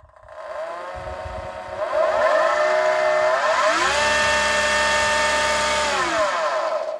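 Electric outboard motor spinning up on a hand throttle, running free with no load: a whine that rises in pitch in two steps, about two and three and a half seconds in, holds steady at full throttle, then falls away and stops at the end.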